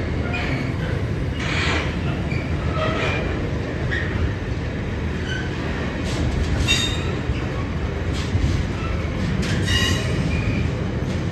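Container freight train wagons rolling past: a steady low rumble of wheels on the rails, with brief high wheel squeals a few times.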